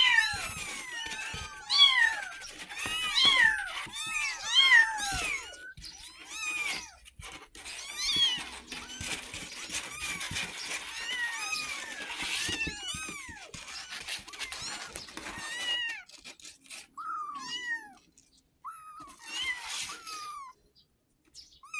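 Very young kittens meowing over and over in short, high, rising-and-falling cries, calling their mother for milk. The cries come thick and fast at first and are scattered single calls near the end, with rustling in the middle stretch.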